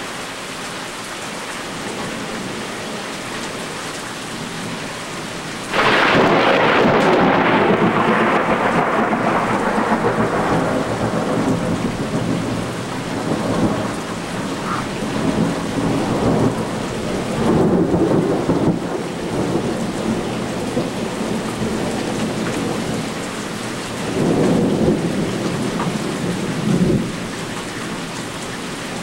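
Heavy rain falls steadily. About six seconds in, a close thunderclap cracks suddenly and rumbles on for several seconds, fading slowly. Two more rolls of thunder swell and fade later.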